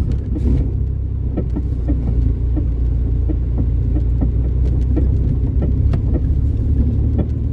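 Car driving along a city street, heard from inside the cabin: a steady low rumble of engine and road noise with light ticks scattered through it.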